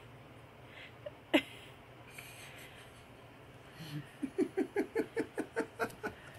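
A woman laughing quietly in a quick run of short breathy pulses, about five a second, starting after about four seconds. A single brief vocal sound comes earlier, about a second and a half in.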